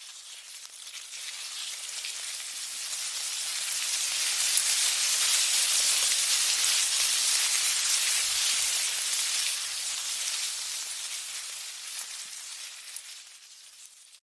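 Ant colony sound effect: a dense, fine crackling hiss of many ants swarming, swelling to its loudest about a third of the way in and fading away near the end.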